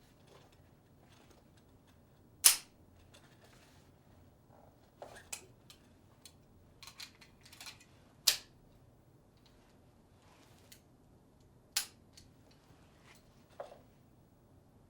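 Sharp metallic clicks and clacks of a Browning Hi-Power pistol being handled as it is cleared. The magazine, slide and catches work one at a time, giving about half a dozen separate clicks and small click clusters. The loudest come about two and a half seconds, eight seconds and twelve seconds in.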